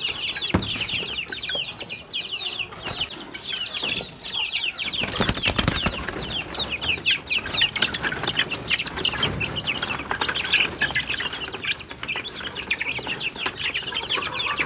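A flock of young native chickens, about two weeks old, peeping rapidly and continuously in short falling notes. A short rustling burst comes about five seconds in.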